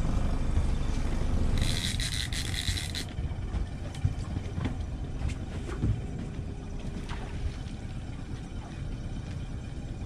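A fishing boat's engine running steadily with a low rumble, with wind and water noise. About two seconds in, a brief higher hiss lasts for over a second.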